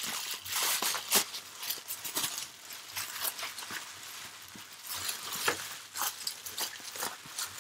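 Bubble wrap crinkling and rustling as it is pulled open and unwrapped by hand, a continuous run of irregular crackles that is busiest in the first second.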